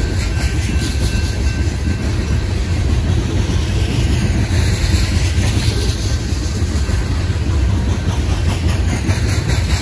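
Loaded coal hopper cars of a freight train rolling past on steel wheels, a steady low rumble of wheels on the rails.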